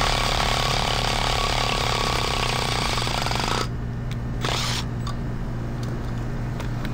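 Cordless impact driver hammering as it turns the forcing screw of a gear puller, pulling the pulley off a blower motor shaft. It runs for about three and a half seconds, stops, then gives one short burst about a second later.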